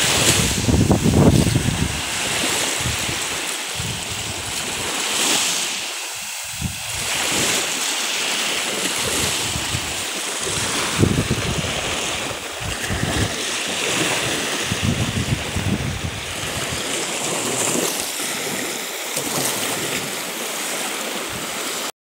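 Small sea waves breaking and washing up onto a sandy beach in a steady hiss, with gusts of wind buffeting the microphone.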